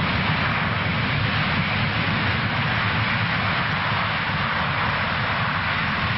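Boeing C-17 Globemaster III's four Pratt & Whitney F117 turbofans running at high power in a loud, steady rush with a deep rumble underneath, as the jet rolls out after a short-field landing with its engines in reverse thrust to stop in a short distance.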